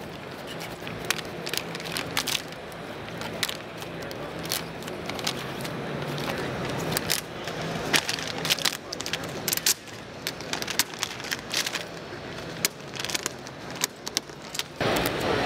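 A sheet of 3M DI-NOC carbon-fibre vinyl film being crumpled and wrinkled by hand: irregular crinkling crackles. A louder, steady rushing noise starts near the end.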